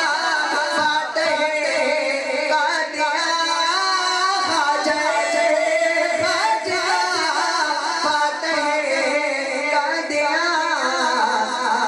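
A man singing a devotional Islamic song solo into a microphone: one continuous, ornamented melodic line whose pitch wavers and slides.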